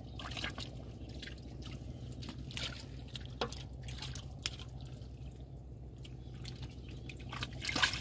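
Muddy water splashing and dripping in irregular small bursts as hands work through the mud of a drained pond, feeling for fish.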